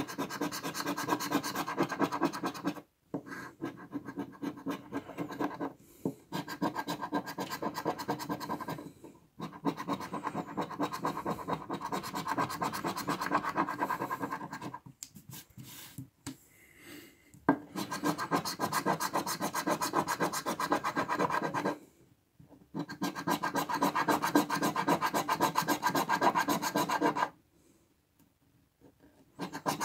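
A coin scraping the silver coating off a paper scratch-off lottery ticket: fast back-and-forth rasping strokes in runs of a few seconds, broken by short pauses.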